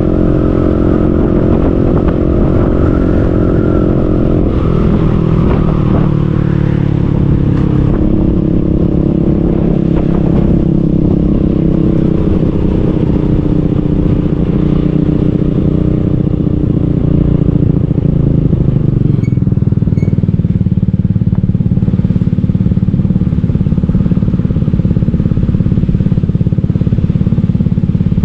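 Motorcycle engine running while riding, with wind rumble on the microphone. Its pitch drops a few seconds in and again about two-thirds of the way through as the bike slows, then holds at a lower steady note.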